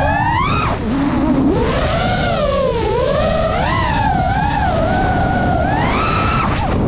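FPV drone's electric motors and propellers whining, the pitch sweeping up and down with the throttle, over a steady rush of wind. The whine climbs sharply and drops off just before a second in, then wavers up and down and climbs again near the end.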